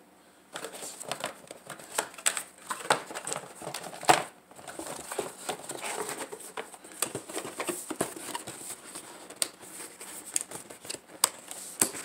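Anti-static plastic bag crinkling and rustling as it is handled, with many small irregular clicks and a sharper tap about four seconds in.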